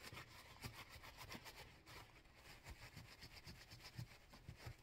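Faint, irregular rubbing with small ticks: a straight razor being wiped and polished by hand to clean off the tarnish.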